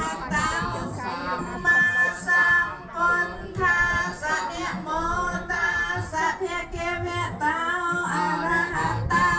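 Music: a woman singing a wavering, ornamented melody over a steady low accompaniment.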